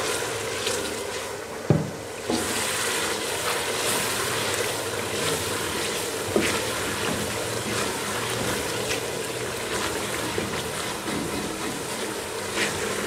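Thick onion-and-spice masala sizzling and bubbling in oil in a metal pot while a wooden spoon stirs it steadily, with a few sharp knocks of the spoon against the pot.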